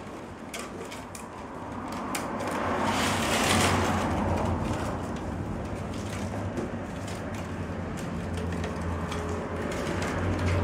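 Willow rods rustling and clicking against each other as they are woven into a basket, with a louder swell of scraping rustle about three seconds in as a long rod is drawn through the weave. A steady low hum lies underneath.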